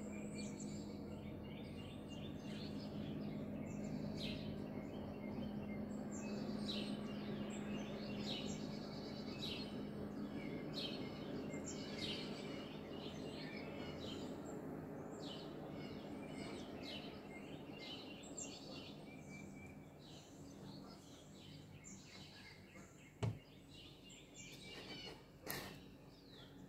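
Many small birds chirping and calling in the early-morning chorus, over the steady low hum of a distant motorboat that fades away after about twenty seconds. A sharp click comes about 23 seconds in, and another knock near the end.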